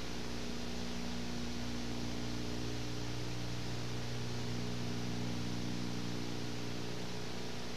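Steady hiss with a low electrical hum underneath, unchanging throughout: background noise of the recording.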